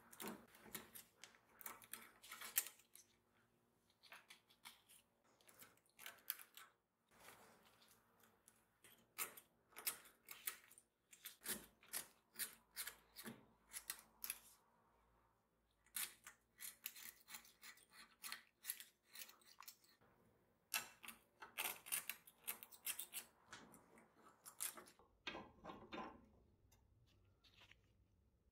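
Craft-knife blade scraping and cutting caked grime and old fibres out of a rusty gear hub, in short irregular strokes with brief pauses between runs.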